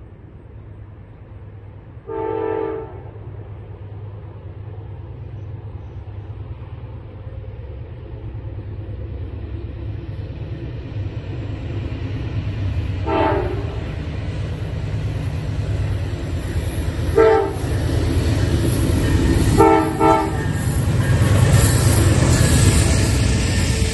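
Amtrak Auto Train led by two GE P40DC diesel locomotives approaching and passing, a low rumble of engines and wheels building steadily to its loudest as the locomotives go by near the end. The horn sounds four short blasts, one about two seconds in and three more in the second half.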